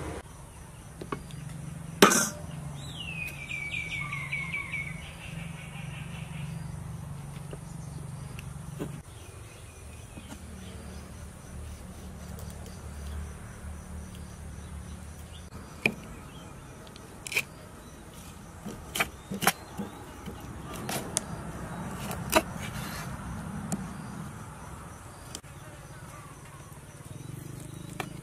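Knife knocking and tapping on a wooden chopping board as fish is cut, in scattered sharp knocks, the loudest about two seconds in and a cluster later on. A bird calls a short run of falling notes just after the first knock, over a low steady hum.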